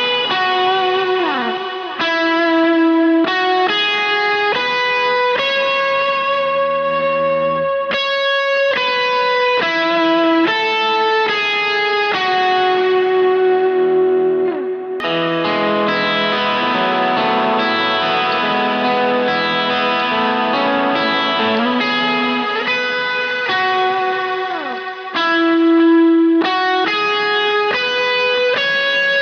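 Electric guitar on its Lambertones Grinder bridge pickup playing a single-note lead melody through delay and reverb effects, with a few slides and a thick swell of overlapping notes in the middle. Near the end it changes to a second guitar on a Lambertones Crema bridge pickup, same effects settings.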